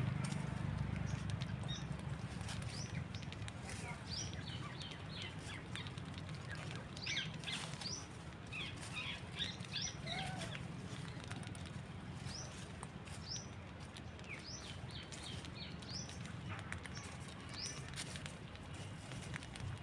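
Birds feeding together give many short, high chirps in scattered quick runs, busiest in the middle of the stretch, over a steady low hum.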